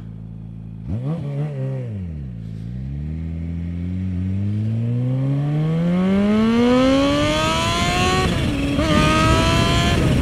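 Kawasaki Ninja H2 SX SE's supercharged inline-four motorcycle engine idling, blipped once about a second in, then pulling away under acceleration with the engine pitch climbing steadily. About eight seconds in the pitch drops at an upshift and climbs again, with wind noise rising as speed builds.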